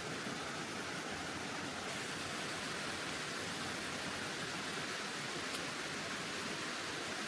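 A steady, even rushing noise with no breaks or changes, like running water.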